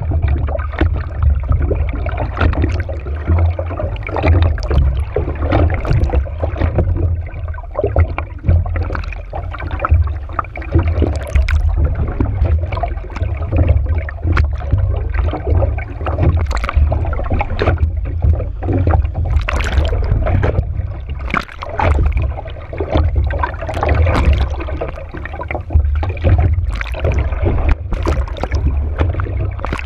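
Kiteboard planing over choppy water, heard from a camera on the board: water rushing and splashing against the hull with many sharp slaps, over a heavy low wind rumble.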